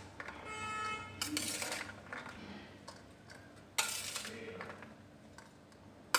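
Steel spoon scraping across a steel plate and clinking as sprouted chana chaat is scooped into a ceramic bowl. One clink near the start leaves a short metallic ring, and further scrapes come about a second in, near the middle and just before the end.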